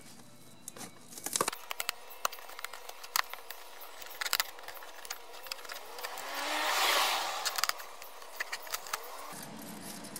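Screwdriver prying staples and cutting tape on a cardboard box: a run of sharp, scattered metallic clicks and ticks. About six seconds in, a broad rushing sound swells and fades, and a low rumble comes in near the end.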